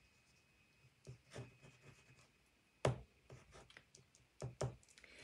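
A glue tape runner drawn across a strip of paper: soft scratchy strokes, then a sharp click about three seconds in and two more clicks near the end.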